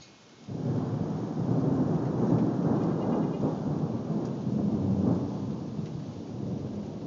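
A long peal of thunder that breaks in suddenly about half a second in and rumbles on, slowly easing off.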